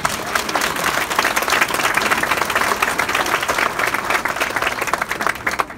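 Audience applauding: many hands clapping in a dense patter that cuts off abruptly near the end.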